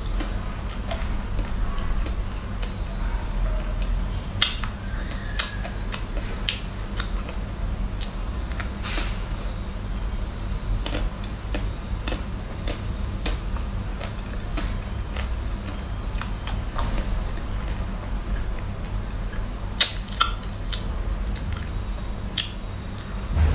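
Close-up eating sounds from a chocolate-coated ice cream bar: its chocolate shell cracks between the teeth and the mouth works on it, giving sharp, irregular clicks a few seconds apart. A steady low hum runs underneath.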